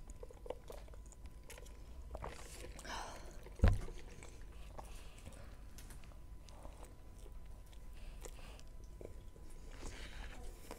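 Close-up eating sounds of a person biting into and chewing a McDonald's Big Mac: small wet mouth clicks and chewing noises. One heavy thump a little under four seconds in.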